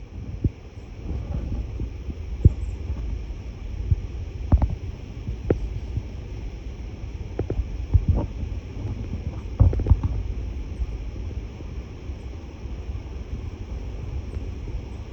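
Low steady rumble with irregular sharp knocks and clicks, a second or two apart, mostly in the first two thirds.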